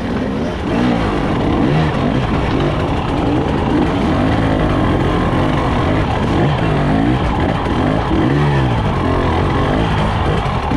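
Two-stroke engine of a Husqvarna TE 300i enduro bike revving up and down as it picks through a rocky climb, its pitch rising and falling about once a second.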